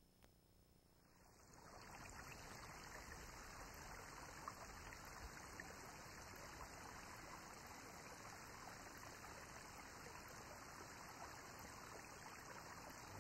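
Near silence, with a faint steady hiss coming in about a second and a half in.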